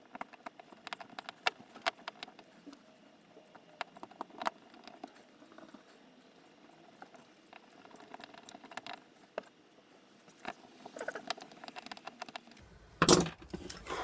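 Small metal parts of a robot-arm kit clicking, tapping and rattling as a servo is bolted into its aluminium bracket by hand, with a louder clatter about a second before the end.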